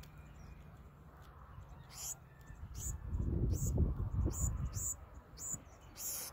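Black-throated sparrows calling in a run of short, high chips, roughly one or two a second, with a low rumble on the microphone swelling up in the middle.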